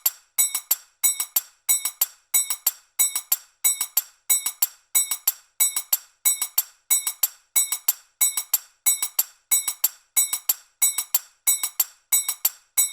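Manjira, small Indian hand cymbals, struck in a steady repeating loop at 92 bpm. The strikes come in quick groups of two and three, each a bright metallic clink with a short ring.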